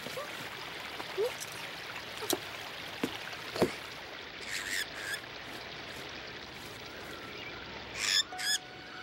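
Cartoon sound effects: water gushing from a fountain spout, with small squeaks and clicks over it. After a quieter stretch, a bird gives two loud squawks near the end.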